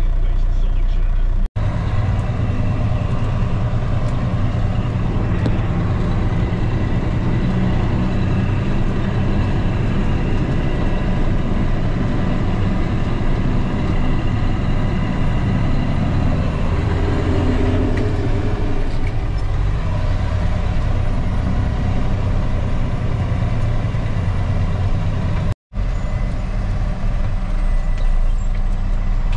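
Dump truck engine running, heard from inside the cab as a steady low hum. The sound drops out very briefly about a second and a half in and again near the end.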